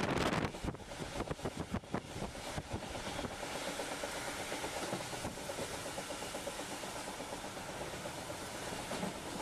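Passenger train running at speed, heard from on board: a steady rolling rumble with a run of sharp clicks in the first two seconds.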